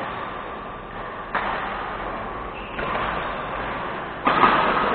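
Badminton rally: four sharp racket strikes on a shuttlecock about a second and a half apart, each echoing in a large sports hall. The last strike, near the end, is the loudest.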